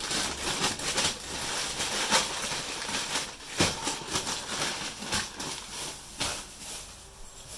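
Brown paper grocery bag crinkling and rustling as it is unwrapped by hand, with a plastic bag crackling, in a run of sharp crackles that thin out near the end.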